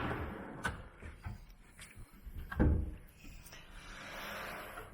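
Kitchen pantry cabinet doors and slide-out shelves being handled: light clicks, a solid thump about two and a half seconds in, and a soft sliding rumble near the end.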